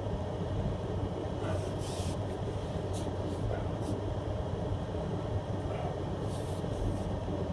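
Pickup truck engine running at low speed while reversing slowly, with a few short brushing noises over the steady hum.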